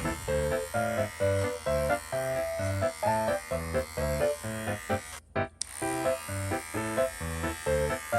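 Bouncy background music of quick short notes over the steady buzz of electric pet hair clippers shaving a cat. All sound cuts out for a moment about five seconds in.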